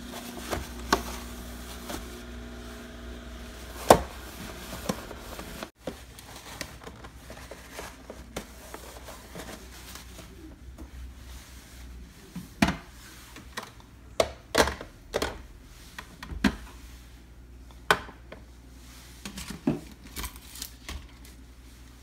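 Irregular light clicks and knocks of plastic refrigerator door bins and parts being handled, with a sharper knock about four seconds in and a run of knocks in the second half.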